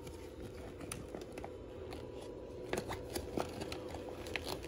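Sous vide immersion circulator running with a steady hum, stirring the water, while a plastic vacuum-sealed bag is handled in it, crinkling and ticking.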